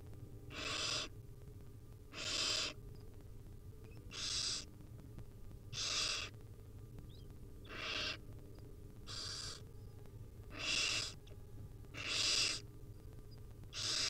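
Barn owl nestlings giving their hissing, snore-like begging calls: about half-second rasps repeated every one and a half to two seconds, the chicks begging to be fed.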